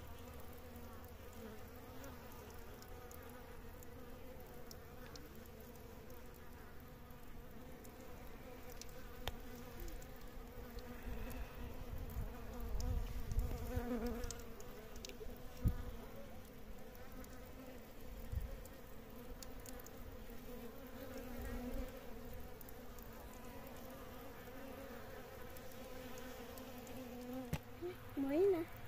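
Insects buzzing in a steady drone, with scattered low thuds and rumbles and a short wavering call near the end.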